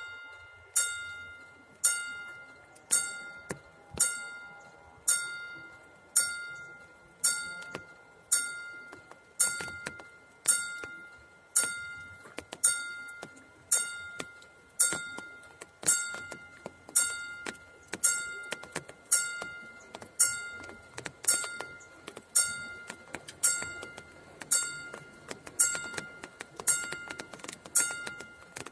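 Railroad level-crossing warning bell striking about once a second, each stroke a clear ringing tone that dies away before the next. It is the crossing's warning that a train is approaching and the barriers are closing.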